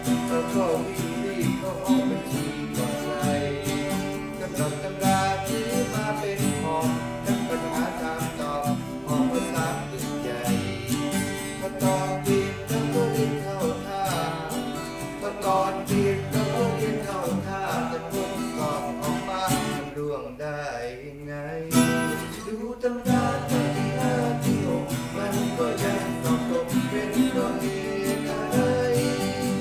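Acoustic band playing: a strummed acoustic guitar over the deep plucked notes of an Aria FEB-30M acoustic-electric bass, with a man singing the melody. The music thins out briefly about twenty seconds in.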